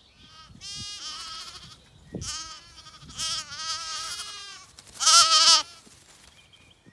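Zwartbles lambs bleating, about four or five high wavering calls that partly overlap, the loudest one about five seconds in.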